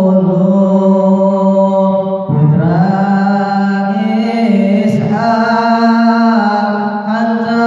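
A young man chanting Sundanese shalawat solo and unaccompanied through a handheld microphone, holding long notes that bend slightly, with short breaths about two, five and seven seconds in.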